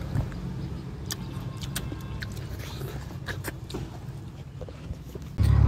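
Steady low hum of an idling vehicle engine, with a few faint clicks from watermelon being chewed. About five seconds in, it cuts to a louder, steady engine drone heard inside a car's cabin.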